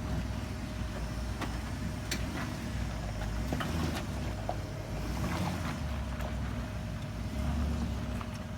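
Jeep Grand Cherokee's engine revving in uneven surges under load as it climbs a muddy off-road rut.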